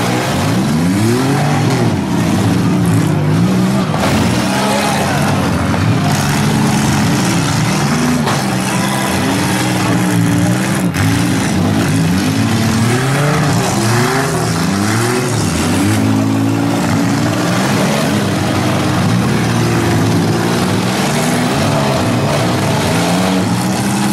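Several minivan engines revving and rising and falling in pitch at once as the vans in a demolition derby push and ram each other, with an occasional crash of metal on impact.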